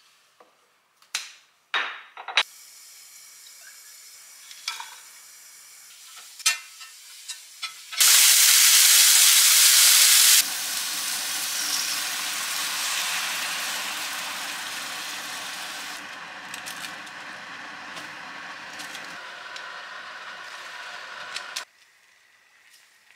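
A few light clicks and knocks of cookware at first, then a frying pan on a gas hob starts to sizzle. A loud hiss breaks out about eight seconds in as food goes into the hot pan. It then settles into a steady sizzle and bubbling as milk is poured over the frying mushrooms, slowly fading before it cuts off near the end.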